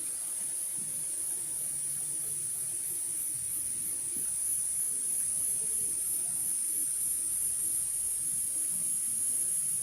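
Steady high-pitched chorus of forest insects, pulsing slightly, over a faint even rush of flowing water.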